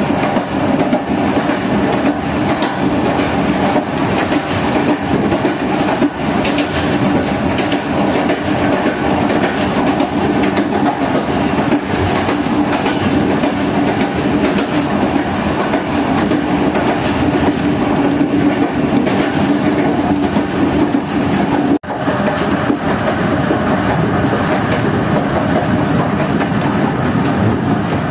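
Passenger train running at speed: a steady rumble of wheels on the rails with clickety-clack from the rail joints. A steady hum runs under it until a momentary dropout about three quarters of the way through.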